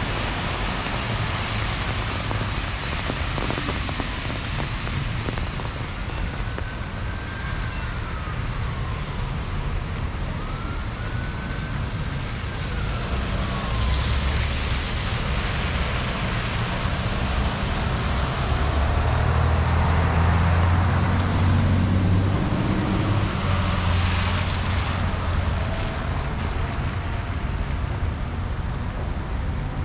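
Heavy rain hissing over city traffic. In the second half a heavy vehicle's engine rumble swells, loudest around the middle, then fades. Earlier, a distant siren wails, rising and falling twice.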